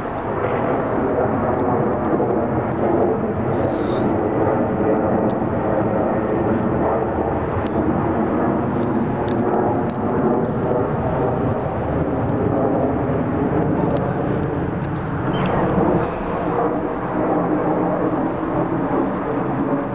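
Jet airliner engine noise, steady and loud, from a Boeing 737-800 passing overhead.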